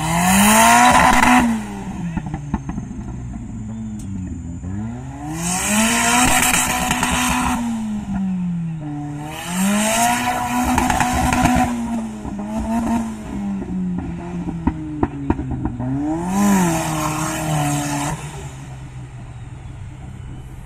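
Off-road 4x4 engine revved hard in about five bursts. Each burst rises, holds and drops away as the vehicle climbs over a sand mound and claws through a dirt pit, with a few sharp clatters of the bodywork in between.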